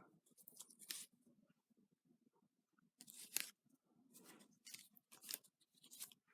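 Faint rustling and scraping of sticker sheets and their packaging being handled, in a few short bursts.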